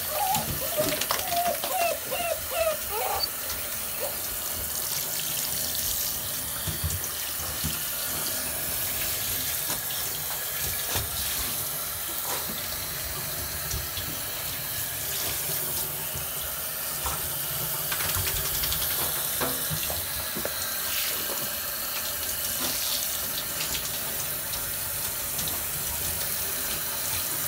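Shower spray running steadily onto a bathtub floor and the wet coats of 7-week-old Dogo Argentino puppies, an even hiss of splashing water. In the first three seconds, a run of short high whines from the puppies.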